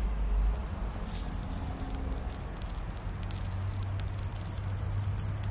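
Salmon fillets sizzling skin-side down on the grate of a Ninja Woodfire grill, with scattered small pops and crackles over a low steady rumble.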